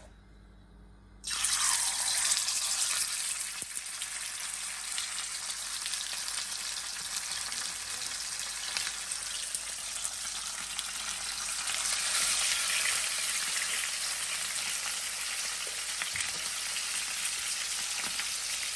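Gentle surf washing onto a sandy beach: a steady fizzing hiss that starts abruptly about a second in.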